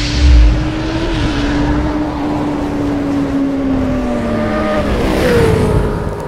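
Motorcycle engine running while riding, its note holding steady and then dropping about four seconds in before rising again near the end, with a heavy low rumble in the first second.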